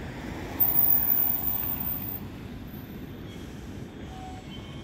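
Oslo metro train at a level crossing: a steady low rumble, with a sudden loud rush of noise about half a second in that fades over about a second and a half. Faint steady tones come in near the end as the train starts to move.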